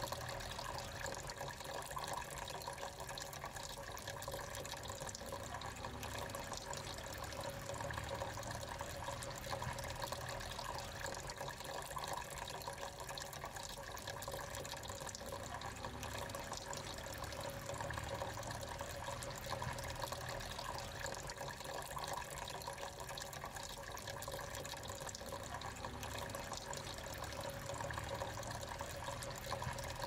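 Thin stream of water from a small pump-fed tabletop fountain falling from its spout into the water-filled basin, splashing steadily.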